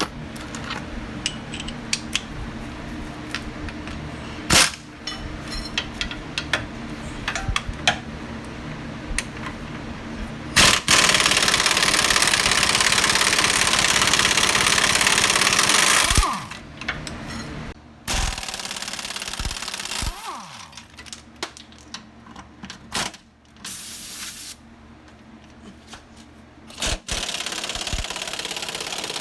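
Impact wrench hammering for about five seconds, backing out the Jeep's track bar bracket bolts, with metal clinks of sockets and tools before and after.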